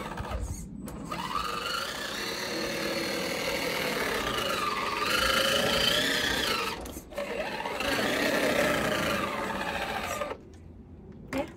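Electric motor and gearbox of a remote-control toy Land Rover driving, a whine that rises and falls in pitch with the throttle. It breaks off briefly twice and stops near the end.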